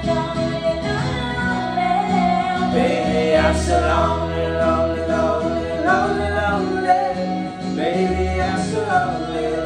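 Karaoke singing: a man and a woman sing into microphones over a recorded backing track with a steady bass line, a third voice singing along without a microphone.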